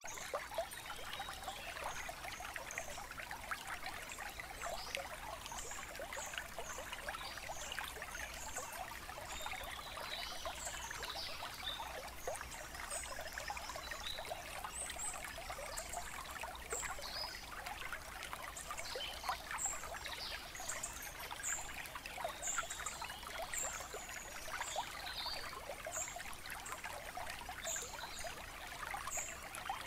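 Water trickling and babbling steadily, like a small stream, with short high-pitched chirps scattered throughout.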